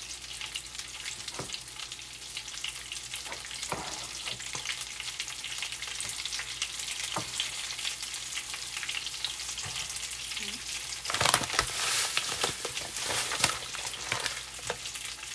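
Breaded oysters shallow-frying in hot oil in a pan: a steady sizzle with small crackles, which grows louder for a couple of seconds about eleven seconds in.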